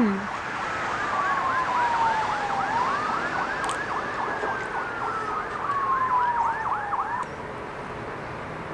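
Emergency vehicle siren: a slow wail falling, rising and falling again over several seconds, overlaid by a fast yelping warble about four times a second. It stops suddenly about seven seconds in.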